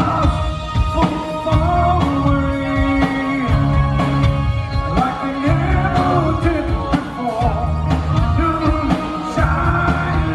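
Live rock band playing a mid-tempo song: a male lead vocal sung over electric bass and drum kit.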